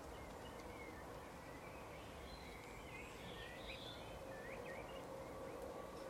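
Faint chirping and twittering of small songbirds, a cluster of quick rising and falling notes in the middle, over a steady low background hum.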